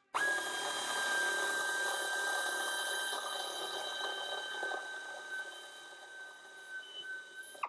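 Pneumatic air drill running at speed with a steady high-pitched whine, drilling the aluminium trailing edge of an aircraft flap. It starts suddenly and stops suddenly near the end.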